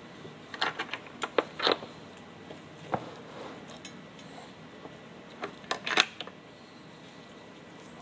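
Gloved hands handling a seat belt pretensioner clamped in a bench vise and its wiring, making small clicks and light metal taps. There is a cluster of them in the first two seconds, a single tap around three seconds in, and another cluster just before six seconds in.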